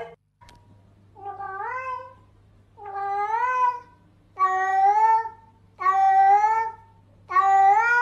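A domestic cat meowing repeatedly: five long, drawn-out meows about a second and a half apart, each rising and then falling slightly in pitch, growing louder.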